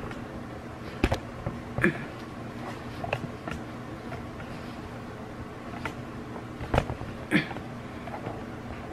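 Handling noise from a hand-held phone camera being moved and repositioned: scattered knocks and rubs, the loudest about a second in and near seven seconds, over a steady low hum.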